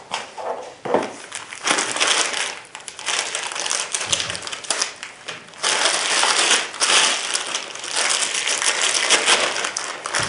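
Packaging being crinkled and crumpled by hand: a dense, irregular crackling with many sharp little snaps, like plastic wrapping being pulled off and handled.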